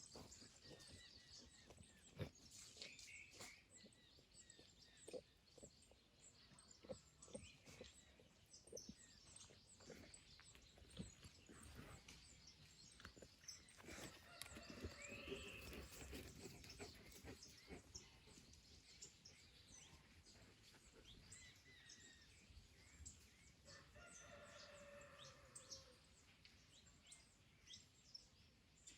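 Faint garden birds calling, many short chirps and chips throughout. Two longer, layered calls stand out, one about halfway through and one near the end.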